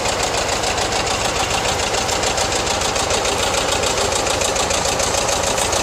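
John Deere 730 two-cylinder diesel tractor running with a John Deere 347 square hay baler working behind it: a steady mechanical clatter with a fast, even beat.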